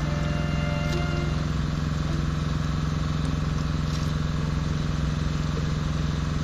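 Small boat engine idling steadily, an even low hum that does not change in pitch or level.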